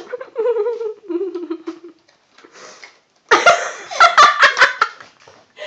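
A girl's drawn-out, wavering vocal sound for about two seconds, then, after a short pause, a burst of loud giggling laughter.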